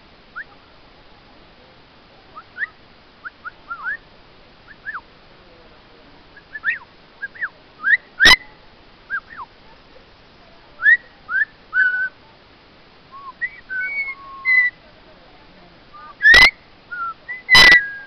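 Orange-winged amazon parrot giving short whistles that swoop up and down, sparse at first and more frequent later. Loud sharp squawks break in once about eight seconds in and again near the end.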